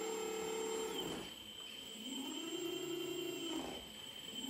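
Electric hydraulic pump of an RC Volvo EC480 excavator model whining, its pitch rising as the stick is worked, holding, then winding back down. It winds down about a second in, spins up and falls again, and starts rising once more near the end.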